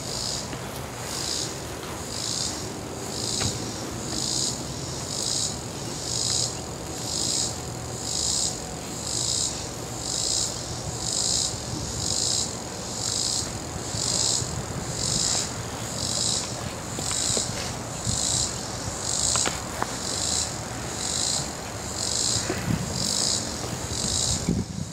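A chorus of insects shrilling outdoors, swelling and fading in a steady rhythm about once a second.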